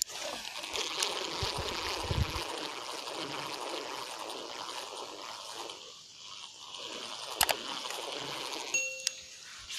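Flood-swollen river water rushing and gurgling steadily. There is a sharp click about seven and a half seconds in, and a short beep-like tone near the end.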